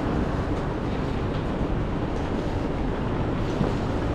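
Steady low rumble of idling buses and traffic under a covered bus-stop roadway.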